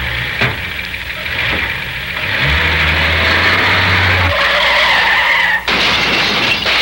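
Car tyres squealing in a long skid, with a low engine hum under part of it. The squeal cuts off abruptly near the end.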